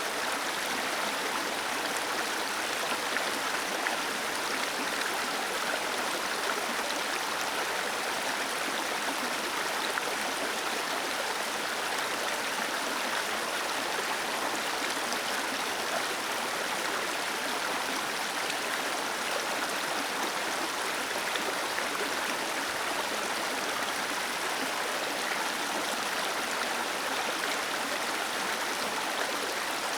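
Small waterfall with water cascading steadily, an even rushing splash with no breaks.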